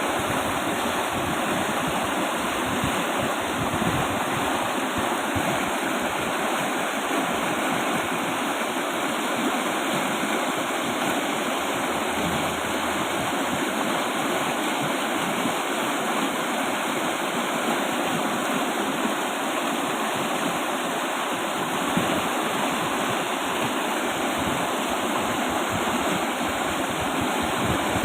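Fast-flowing river rushing steadily, a continuous even roar of water.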